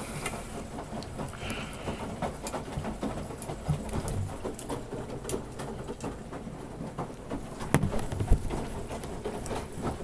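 Samsung Grande washing machine running its standard cycle: a steady patter of water splashing in the tub, with many scattered light clicks.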